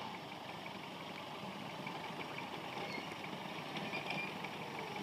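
Off-road 4x4 engine idling steadily during a vehicle recovery in snow.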